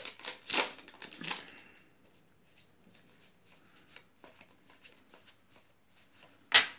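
Magic: The Gathering trading cards being handled and flipped through: a few sharp papery flicks at first, then faint light ticks as cards slide past one another, and one louder sharp snap near the end.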